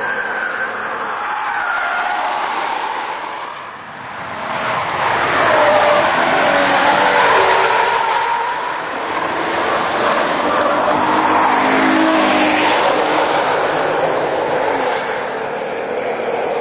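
A car being driven hard, its engine pitch sweeping up and down several times. It dips about four seconds in, then grows louder.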